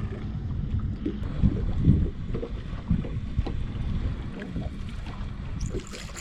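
Wind rumbling on the microphone in a small fishing boat, with irregular low thumps and knocks, the loudest about two seconds in.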